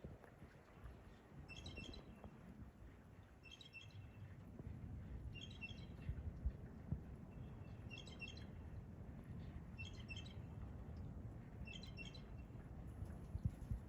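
A songbird repeating a short chirping phrase of a few high notes about every two seconds, over a steady low outdoor rumble with a couple of soft thumps.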